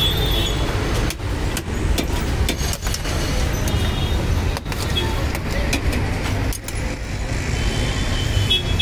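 Steady road traffic rumble from a busy street, with scattered light clicks through it.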